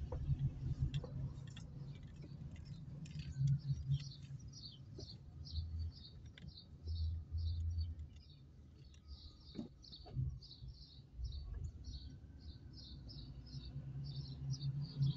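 Car driving slowly, heard from inside the cabin: a low engine and tyre rumble with a couple of light knocks. From a few seconds in there is a fast, regular high-pitched chirping, about three chirps a second.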